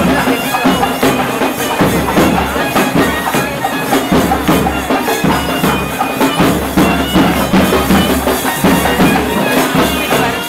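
Loud procession music: reed wind instruments playing over a steady drone, with rapid, evenly spaced drum strokes.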